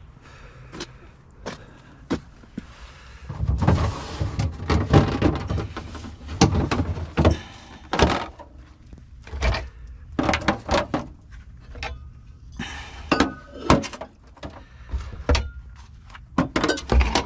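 Irregular knocks, thuds and scrapes as a discarded refrigerator is handled, with a longer stretch of scraping a few seconds in.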